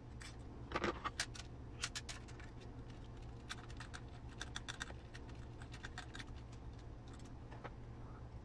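Scattered light clicks and ticks of small hardware being handled: a rock slider held against an RC crawler's chassis rail while a screw is turned in with a 2 mm ball-end hex driver. The sharpest clicks come about a second in, then a quicker run of ticks from about three and a half to six seconds.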